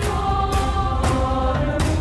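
Background music: choir-like held voices over a steady beat and bass.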